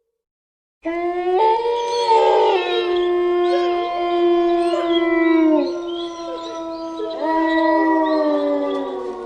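A pack of wolves howling in chorus, several long howls at different pitches overlapping and sliding. It starts suddenly about a second in, and fresh howls rise again near the end.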